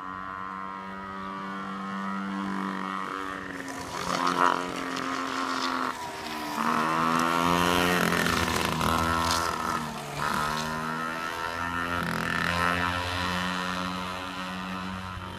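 Yamaha PW50's small two-stroke single-cylinder engine running under a rider, its pitch dropping and climbing back several times as the throttle is eased and opened. It is loudest about four and a half seconds in.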